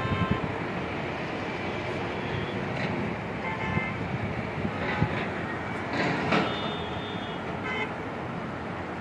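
Steady road-traffic noise from a busy highway, with several short vehicle horn honks scattered through.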